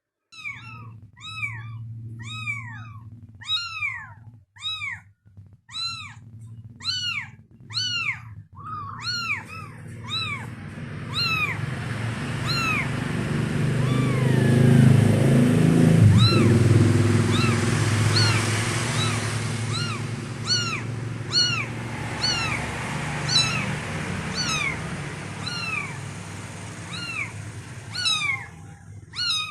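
Kittens mewing: short, high, rise-and-fall mews about two a second, then many overlapping mews. Through the middle a loud rushing noise with a low hum swells up under the mews and eases off again.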